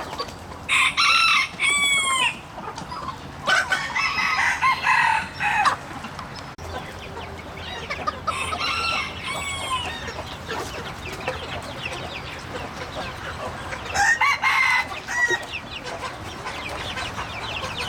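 A flock of chickens clucking continuously, with roosters crowing in four loud bouts.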